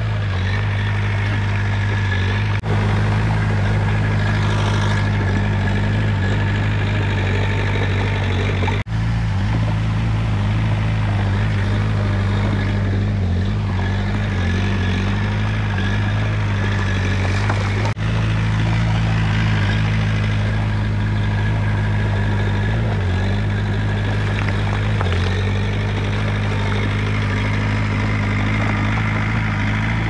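Komatsu D20 bulldozer's diesel engine running at a steady low drone that holds the same pitch throughout.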